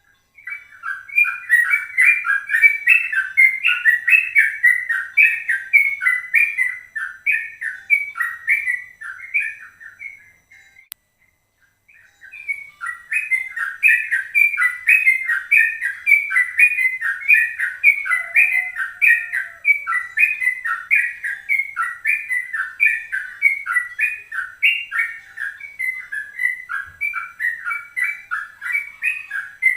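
A songbird singing a fast, unbroken run of short whistled chirps in the rapid 'ropel' style used to lure trucukan (yellow-vented bulbuls) into song. It breaks off for about a second, about eleven seconds in, and then resumes.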